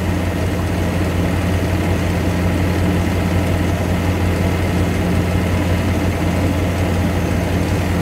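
Chevrolet's engine idling steadily under the open hood, a low, even drone, kept running with the air conditioning on while its refrigerant is being topped up.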